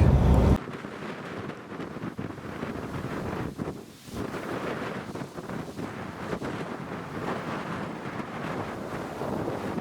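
Wind buffeting the microphone in uneven gusts, with a short lull about four seconds in. A loud low rumble cuts off about half a second in.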